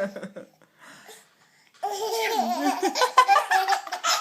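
Baby laughter, high-pitched giggles at a pretend sneeze. It dies away just after the start, stops for about a second and a half, then starts up again about two seconds in.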